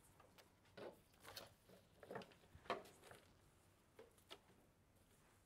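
Faint rustling and light taps of cut flower stems and foliage being handled, a few short scattered sounds.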